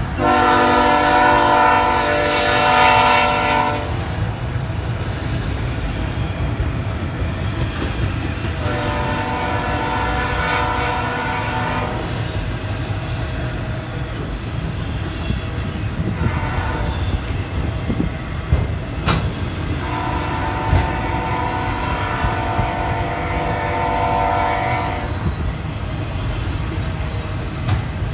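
Train horn sounding the grade-crossing pattern: two long blasts, one short and a final long one, over the steady low rumble of a passing train.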